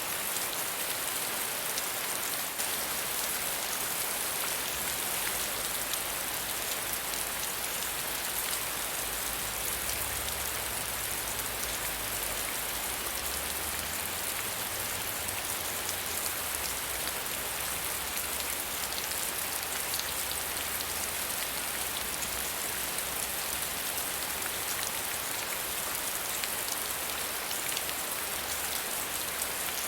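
Steady soft rain falling on a surface, an even hiss of many fine drops, with a faint low rumble through the middle.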